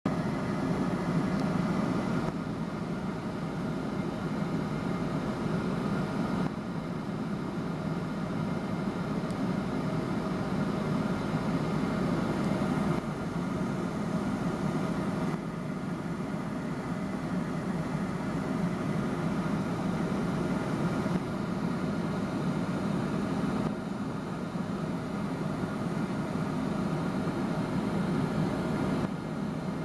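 Steady cabin noise of a McDonnell Douglas MD-11 airliner in cruise flight: engine and airflow noise heard from inside the passenger cabin as an even, low rush with no breaks.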